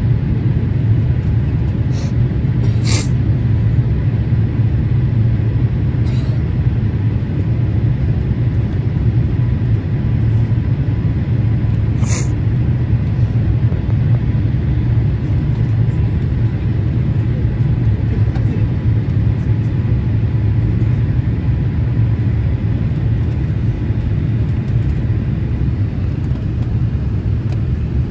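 Steady low roar of a Boeing 787 cabin in flight: engine and airflow noise heard from a window seat, with a faint steady whine above it. A few short clicks come in the first half.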